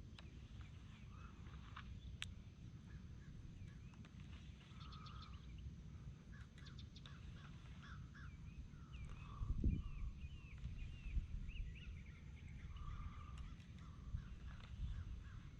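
Several birds chirping and calling in short, repeated notes over a steady low rumble, with a single thump about ten seconds in.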